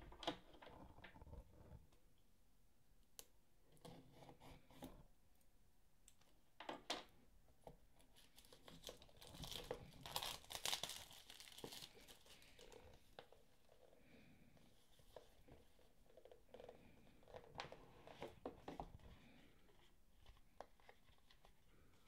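Quiet rustling, crinkling and tearing of packaging as a small white cardboard box is handled and opened, with scattered taps and clicks. The busiest stretch of crinkling and tearing comes near the middle.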